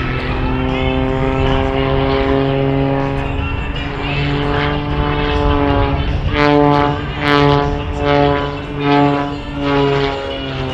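Edge 540 aerobatic plane's six-cylinder Lycoming engine and propeller at full power in a display pass. The pitch holds fairly steady, then about six seconds in the sound starts to swell and fade roughly once a second.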